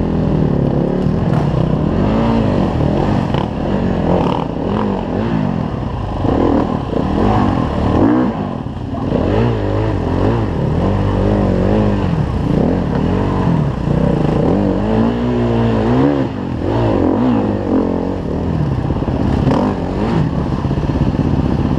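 Enduro motorcycle engines revving up and down in short blips at low speed, the pitch rising and falling every second or two.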